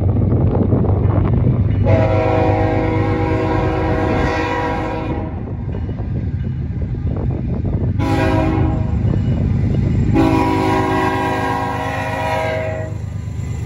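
Multi-chime air horn of an approaching freight train's lead locomotive, CN ES44DC 2235, sounding for a grade crossing. It gives a long blast, a short one and another long one. A low rumble runs underneath.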